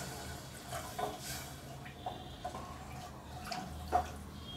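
Wooden spatula stirring a watery pea gravy in an aluminium pressure cooker: liquid sloshing, with several light knocks of the spatula against the pot's side, the sharpest near the end.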